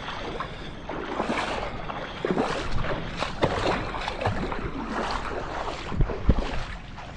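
Shallow seawater sloshing and lapping with wind buffeting the microphone, and a couple of sharp low thumps about six seconds in.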